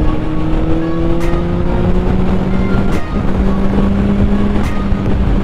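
Honda CBR600RR's inline-four engine pulling away as traffic starts moving, its pitch rising slowly, with a brief dip in loudness about three seconds in before it runs on steadily.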